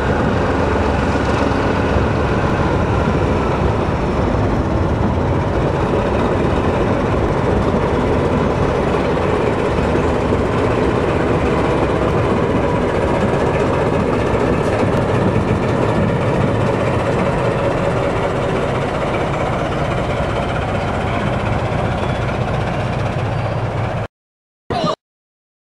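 Class 14 diesel-hydraulic locomotive hauling coaches over a girder bridge, its engine running steadily under the rumble of the train. About 24 seconds in the sound cuts off abruptly, leaving silence broken by one brief snatch of sound: the camera's intermittent recording fault.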